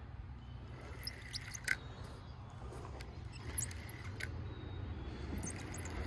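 Quiet outdoor background rumble with a scattering of small, sharp clicks and ticks, a few about a second in and more in the second half.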